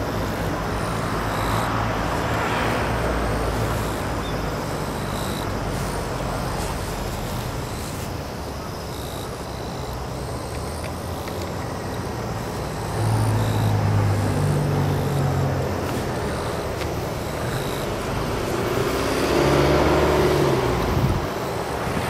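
Distant vehicle engine over a steady outdoor hum: a low engine note that grows louder about 13 seconds in and again near 19 seconds, when a higher rising tone joins it.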